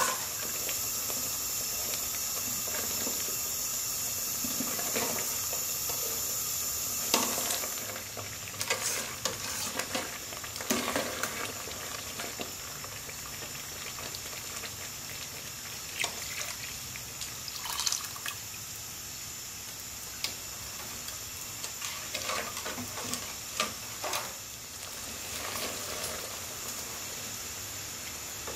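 Metal ladle stirring a thick simmering sauce in a metal stockpot, with scattered scrapes and knocks against the pot and liquid sloshing. A steady hiss during the first seven seconds or so; pineapple juice is poured in partway through.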